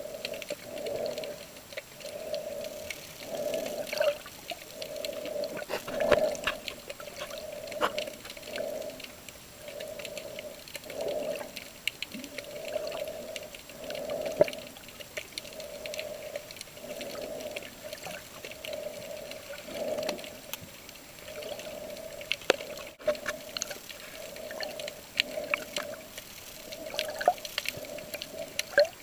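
Underwater sound picked up by a submerged camera: a steady low hum that swells and fades about once a second, with water movement and scattered clicks and crackles.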